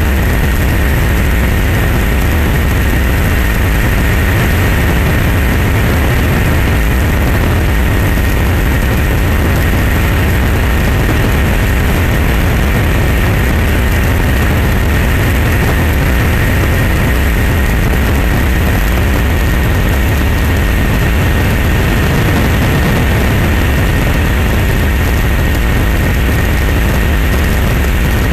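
Steady engine noise of an aircraft in flight, heard from inside the cabin: a loud, even deep drone with a thin steady whine above it.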